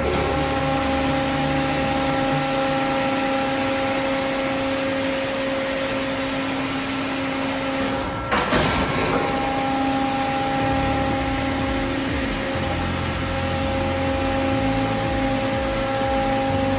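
Schwing KSP piston pump system running: a steady mechanical hum and whine with several held tones and a low hum that shifts in level. About eight seconds in, a short burst of noise interrupts it and the whine dips briefly.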